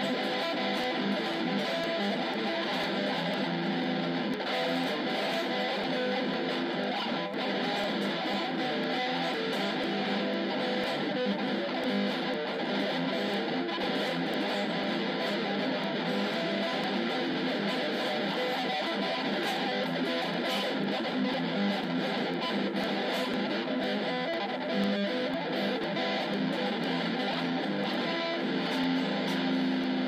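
Improvised jazz guitar music, plucked and strummed, playing steadily.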